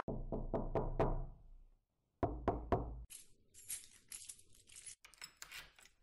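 Knocking on a door: a quick run of about six knocks, a short pause, then four more. After that comes about two seconds of light, high rattling and a few scattered clicks.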